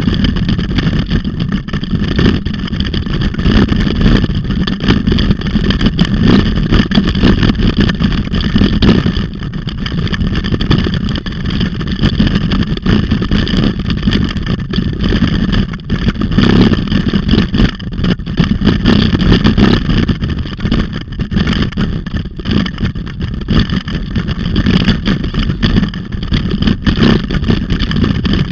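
Low, fluttering wind buffeting and rolling noise on a camera mounted on a moving bicycle being pulled along at speed.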